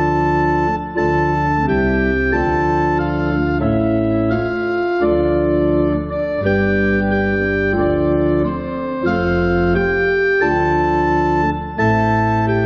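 Church organ playing a chorale (hymn tune): full sustained chords moving in steady steps, with short breaks between phrases every few seconds.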